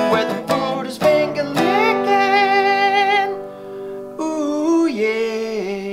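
Background music: acoustic guitar strumming for about the first second and a half, then long held notes with vibrato, fading out near the end.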